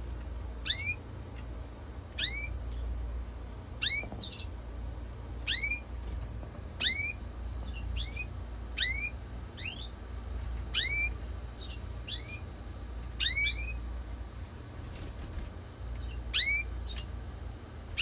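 Red mosaic canary calling over and over, a short rising note about every one to two seconds. It is a contact call: the owner takes it for the bird looking for the mate it has been separated from. A low steady hum runs underneath.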